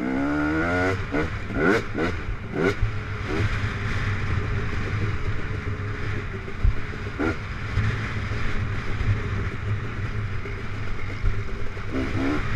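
Off-road dirt bike engine heard from the rider's helmet. The revs climb three times in the first three seconds as it accelerates, then it runs steadily under load with a constant low rumble.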